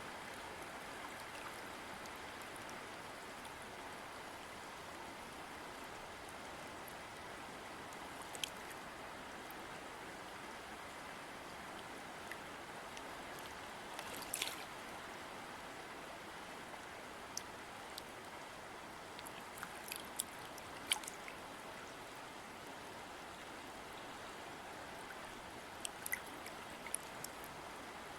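River water flowing, a steady rushing stream with a few brief sharp ticks scattered through it, the clearest about halfway.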